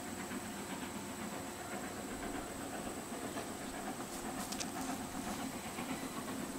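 Distant steam locomotive working along the line: a steady rumble with a hiss of steam.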